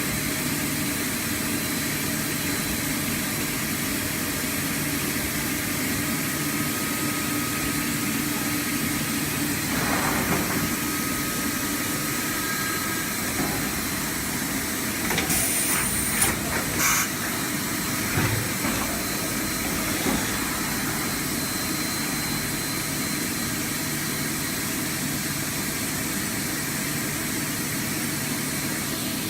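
Mazak Integrex 300-IV ST CNC multi-tasking turning centre running under power: a steady machine hum with a hiss. A few short, sharper bursts and clatters come around the middle.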